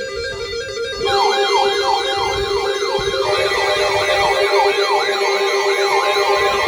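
Electronic emergency alert tone for a severe thunderstorm warning: a fast warbling two-note tone, joined about a second in by a siren-like wail sweeping rapidly up and down over steady tones.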